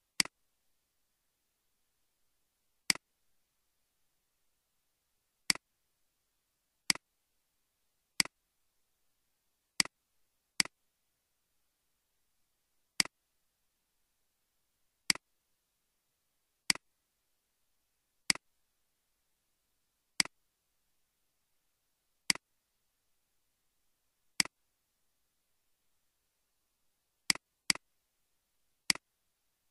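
Computer mouse clicks: about seventeen single sharp clicks, spaced unevenly one to three seconds apart, with silence between them.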